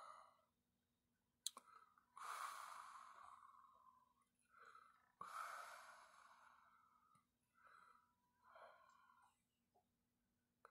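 Faint human breathing close to the microphone: two long sighing exhalations, each starting suddenly and fading away, after a single sharp click, with a few short, softer breaths later on.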